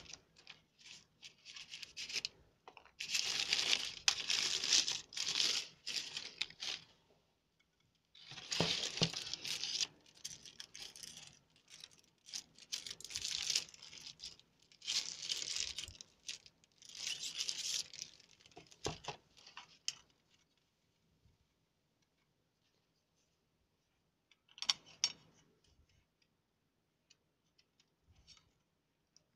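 Plastic film and tissue wrapping crinkling and tearing as the parts of a DIY wall clock kit are unwrapped by hand. It comes in several bursts through the first twenty seconds or so, then goes mostly quiet apart from a brief clatter later on.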